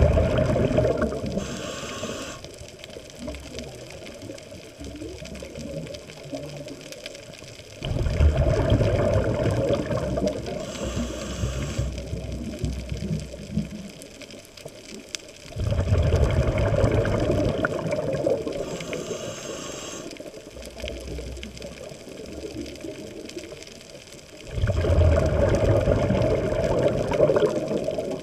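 A scuba diver breathing through a regulator underwater. There are four loud bubbling exhalations about eight seconds apart, each followed by a short hiss from the regulator.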